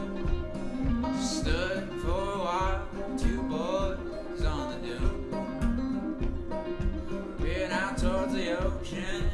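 A live acoustic string band playing a country-bluegrass tune, with acoustic guitar strumming and banjo picking to a steady beat. A melody line that bends and wavers in pitch comes in over the top twice.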